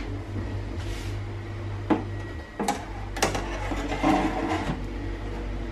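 Metal wire racks and trays of an air fryer oven being handled, with several sharp clinks and knocks about two to three seconds in, over a low steady hum.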